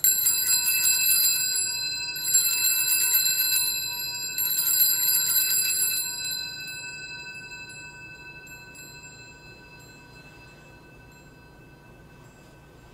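Altar bells shaken in three rings at the elevation of the chalice, marking the consecration of the wine; the bright metallic tones ring on and fade away over several seconds.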